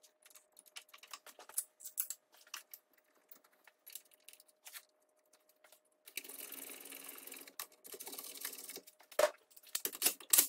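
Light metal clicks and taps as a six-hole wheel-bearing puller plate is set against the wheel hub and its bolts are threaded in by hand. About six seconds in come two stretches of quick ratcheting, about a second each, as the bolts are run in with a hand ratchet, then more sharp metal clicks near the end.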